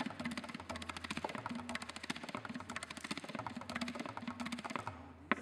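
Tabla pair played with rapid, dense strokes, the bayan's deep bass tone swelling beneath the sharper dayan strokes. Near the end the playing thins out to a few separate strokes, one of them sharp and loud.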